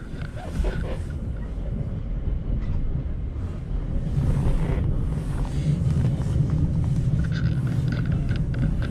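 Steady low rumble of an ÖBB passenger train in motion, heard from inside the carriage, with a few faint clicks. It grows a little louder about four seconds in.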